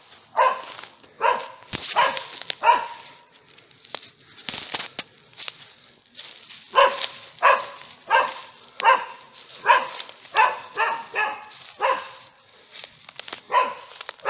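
A young Bavarian mountain hound barking over and over, giving tongue to announce game found on the blood trail. There are about four barks in the first few seconds, then after a short lull a faster run of barks, with rustling in dry leaves between them.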